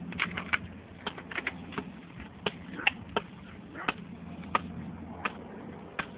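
Irregular sharp clicks and taps, roughly two a second, over a faint steady low hum.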